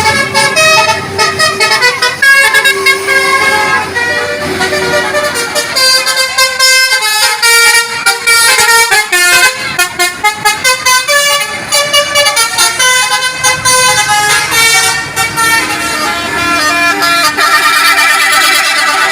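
Indonesian bus 'telolet' musical horns playing loud multi-note tunes, the pitch stepping from note to note every fraction of a second, with several horn tones often sounding at once.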